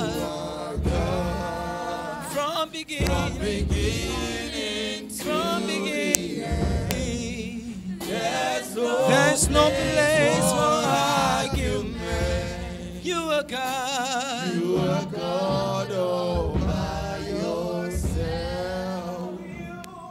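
Live gospel worship singing: a male lead singer sings through a microphone, with backing singers joining in, his held notes wavering with vibrato.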